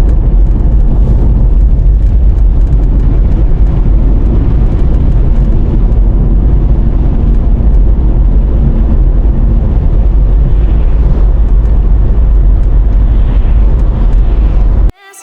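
Car driving at highway speed: steady, loud low rumble of road and engine noise, cut off abruptly near the end.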